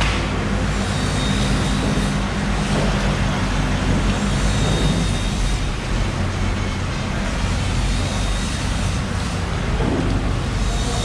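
Steady mechanical drone with a low engine-like hum and a thin, high steady whine running through it.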